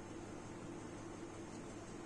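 Faint steady hum and hiss from a running desktop computer, its cooling fan and power supply, with no change or event.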